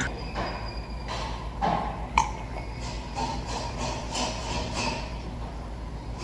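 A ceramic mug knocks once against a glass tabletop about two seconds in: a single sharp clink with a brief ringing ping. Around it there are only faint soft handling sounds over a low steady hum.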